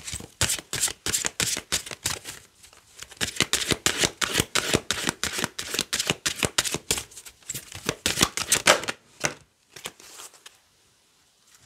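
An Orakel der Vögel oracle card deck shuffled by hand: a rapid run of card slaps and flicks for about nine seconds, then a few scattered ones near the end.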